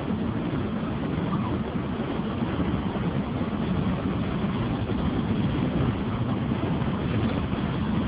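Steady low rumble of engine and road noise from a moving vehicle, heard from on board.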